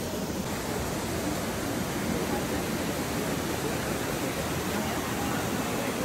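River water rushing over rocks: a steady, even rush with no breaks.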